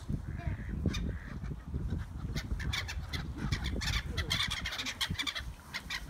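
A flock of gulls calling in many short cries as they mob for food. The calls grow busier and denser from about two seconds in.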